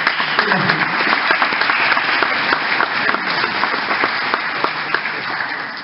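Audience applauding, many hands clapping together, fading away near the end.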